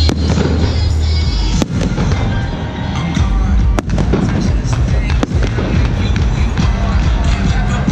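Aerial firework shells bursting: about four sharp bangs, one every second or two, over loud music playing throughout.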